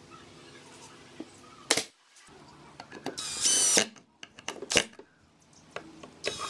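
Cordless drill driver running in short bursts to drive screws into a pine board: one burst of under a second about three seconds in and a shorter one near the end. Sharp knocks of wood come about a second and a half in and again between the bursts.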